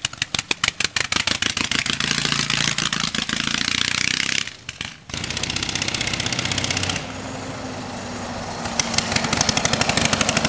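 An 18 hp Briggs & Stratton twin-cylinder engine on a homemade go-kart running under way through a dual exhaust, firing as a rapid train of pulses that the builder admits has the mixture off. It drops away briefly about halfway, is fainter and steadier for a couple of seconds, then grows louder again near the end as the kart comes by.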